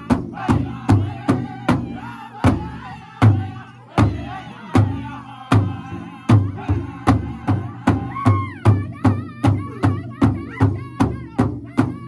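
Powwow drum group singing in unison while beating one large drum together with drumsticks. The beat slows to spaced strokes for a few seconds in the middle, then picks up to a quick, steady beat as a high solo voice rises over the group about two-thirds of the way through.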